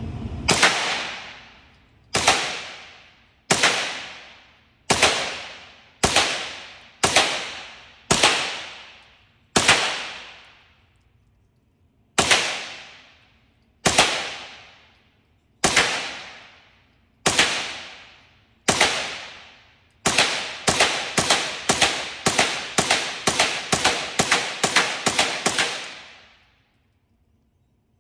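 .22 rimfire gunshots, CCI Stinger ammunition. Roughly a dozen slow, deliberate shots a second or two apart, each ringing on for about a second, then a fast string of about a dozen more shots.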